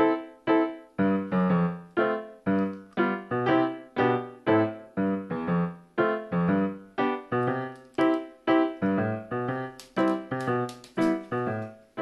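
Background piano music: a steady run of struck notes, each fading quickly.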